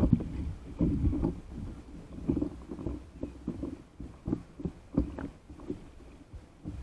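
Sea water slapping and splashing against an inflatable stand-up paddle board, heard close up from a camera on the board's deck, in irregular bursts.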